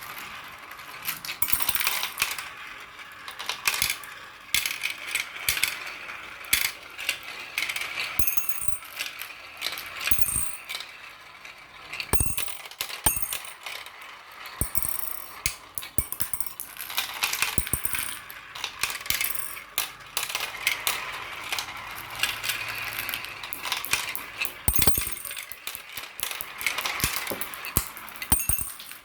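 Marbles rolling and clattering down a marble run: a continuous rolling rattle broken by many sharp clicks.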